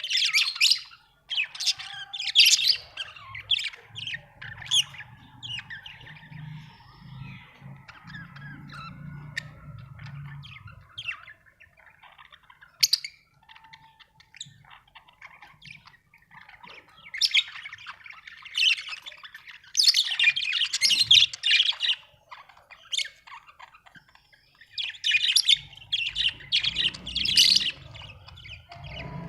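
Budgerigars chirping and squawking in bursts of chatter, sparse in the middle and dense again in the second half.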